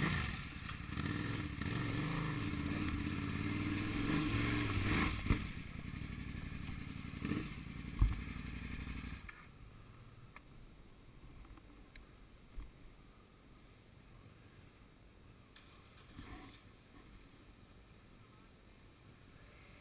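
Adventure motorcycle engine revving up and down at low speed over rough ground, with a sharp thump about eight seconds in. The engine sound stops suddenly about nine seconds in, leaving only faint background noise.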